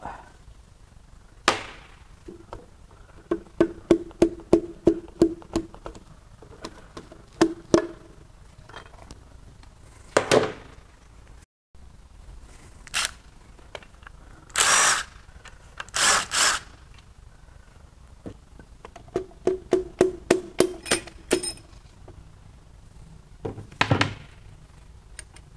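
A ratchet working connecting-rod cap bolts loose inside a GM 5.3L V8 block, in repeated runs of rapid clicks. A few short, louder clatters of metal tools and parts come between the runs.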